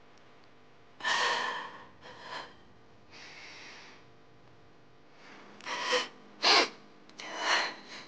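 A woman crying: a string of about six gasping, shaky breaths and sniffles with short pauses between them.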